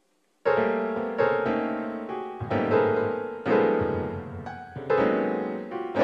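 A piano-like keyboard playing a slow, sad tune of struck notes and chords that ring and fade, a new one about every second, the first coming in about half a second in.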